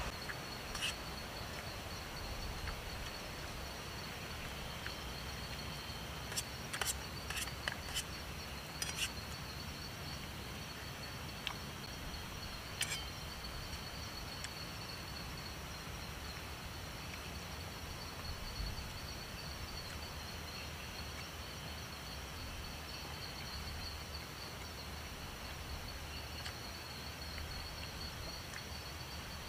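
A steady high-pitched trill of insects calling, over an even background hiss. A few sharp clicks or taps stand out, bunched about a quarter of the way through, with another near the middle.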